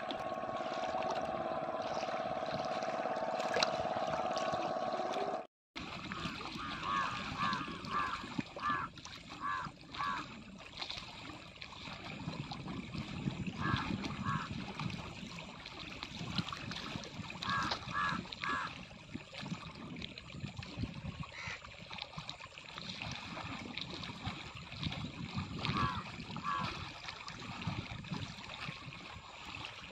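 A distant motorboat engine drones steadily at one pitch for the first few seconds. After a short break, water laps at the shore under a low rumble, and a bird calls in short runs of quick notes several times.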